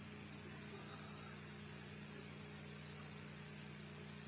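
Steady low electrical hum with a background hiss and a thin, high, constant whine: recording or sound-system background noise, with no distinct sound from the unpacking.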